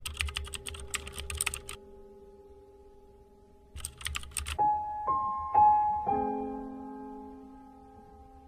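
Keyboard typing sound effect: a run of quick key clicks for about two seconds, then a shorter run about four seconds in, over a faint held tone. After the second run, soft piano notes enter, a few single notes that ring on.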